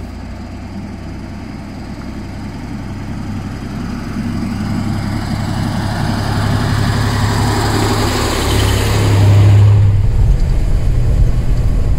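The diesel engine of a Magirus Deutz 170D11 four-wheel-drive truck, with a strong low engine hum and rushing noise, as the truck drives up a gravel track towards and past the listener, growing louder until about nine seconds in. At about ten seconds the sound changes to the steadier engine drone heard from inside the truck's cab while it drives on.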